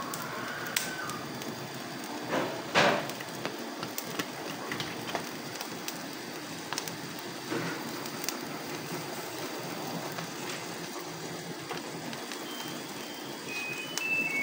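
Gas stove burner hissing steadily while prawns sizzle and crackle on a wire grill rack over the flame, with scattered sharp clicks and knocks from metal tongs on the rack, the loudest about three seconds in. Near the end a few high music notes come in.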